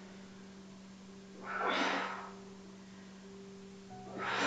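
A woman's forceful exhales through the mouth, twice: a hissy blast of breath about a second and a half in and another near the end, each on the effort of a Pilates crunch. A faint steady low hum sits underneath.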